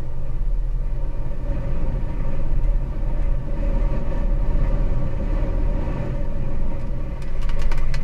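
Hurricane-force wind buffeting the camera microphone in a steady low rumble over churning storm-surge floodwater. Near the end comes a cluster of sharp ticks as water spatters on the camera.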